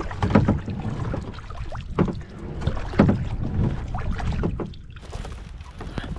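Water slapping and knocking against a kayak's hull, in irregular strokes about a second apart, over a low rumble of wind on the microphone.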